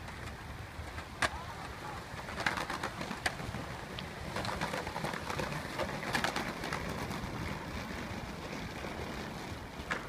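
Outdoor skate-park ambience: a steady rumble with several sharp clacks, typical of skateboards landing and rolling on concrete, and a busier patch of clatter in the middle.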